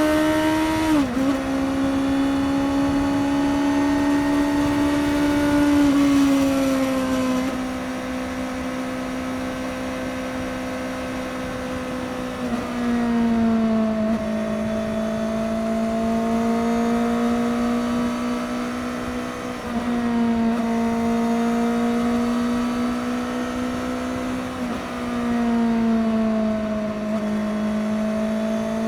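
Suzuki GSX-S750's inline-four engine with its stock exhaust, running under steady highway cruising, the note dipping briefly with throttle changes about a second in and a few more times later on.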